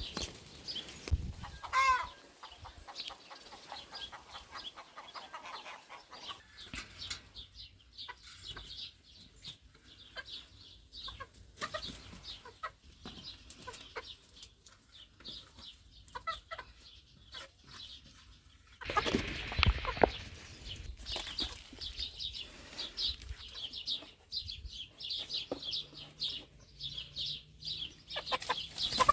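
Chickens clucking, with a louder rustling burst lasting about a second and a half about two-thirds of the way through.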